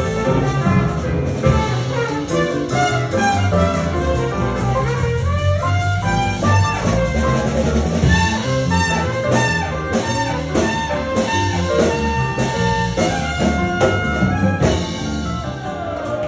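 Live New Orleans jazz band playing: trumpet and horns carry the melody over a walking bass line and drum kit.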